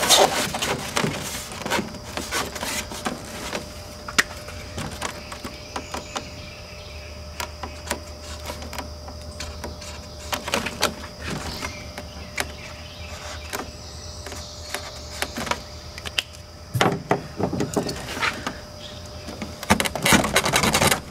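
Cardboard template sheets being shifted, pressed and slid against the ribs and floor of an aluminum jon boat: irregular rustling, scraping and light knocks. The handling is busiest at the start and again in two louder bouts near the end.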